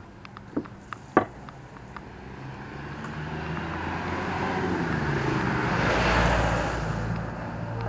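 A motor vehicle passing close by on the street, its noise swelling over a few seconds to a peak about six seconds in and then easing off. Two sharp clicks come in the first second or so.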